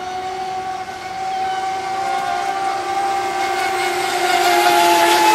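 High-pitched steady whine of a radio-controlled speedboat's motor running flat out, growing louder toward the end as the boat comes closer.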